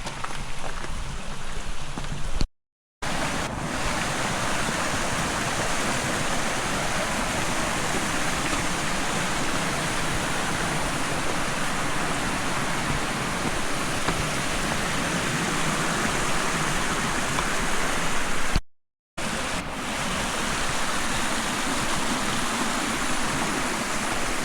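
Mountain stream rushing steadily, an even noise of flowing water, cut by two short silent gaps.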